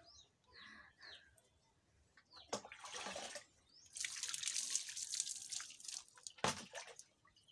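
Water poured from a plastic dipper splashing over an arm and hand in a bucket bath, in two pours, the second longer. A short sharp knock follows near the end.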